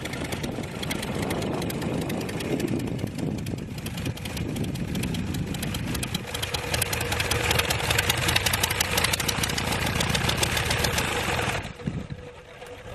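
Verner Scarlett 5Si five-cylinder radial engine running at low power, growing louder as it comes close, then cutting off suddenly near the end.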